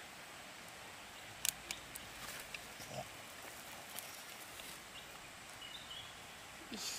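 Quiet outdoor background with faint rustling and a few light clicks of hands handling cabbage leaves, and a brief faint voice-like sound near the end.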